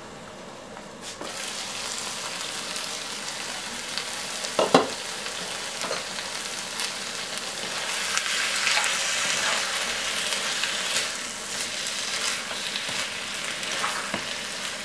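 Chicken liver sizzling in a frying pan while a spatula stirs and scrapes through it. The sizzle grows louder about a second in, and there is one sharp knock a little before the middle.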